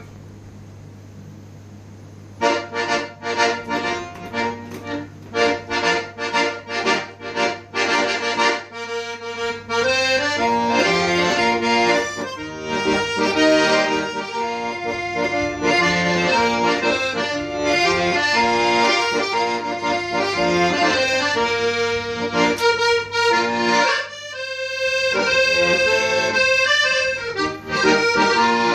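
Manfrini piano accordion playing. After a couple of seconds of quiet it starts with short repeated chords, about two a second, then from about nine seconds in plays a sustained melody over chords.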